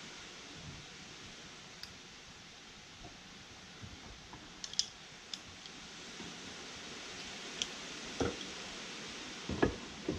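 Light metal clicks and taps of a new piston, wrist pin and connecting rod being handled and fitted together in a bench vise, a handful of them scattered and the sharpest about halfway through, over a steady hiss.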